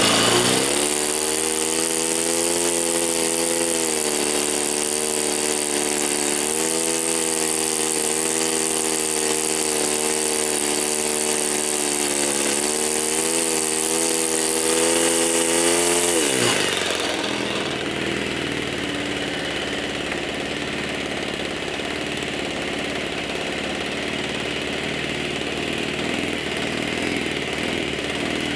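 ASP 5cc four-stroke model glow engine running on a ground test at fairly high speed, its pitch rising and falling a few times as the throttle is worked. About 16 seconds in it is throttled back and settles into a quieter, low idle.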